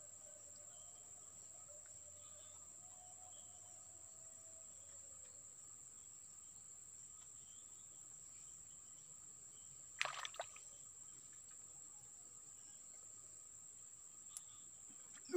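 Insects buzzing in a steady high-pitched drone over faint outdoor ambience, with one brief sharp sound about ten seconds in.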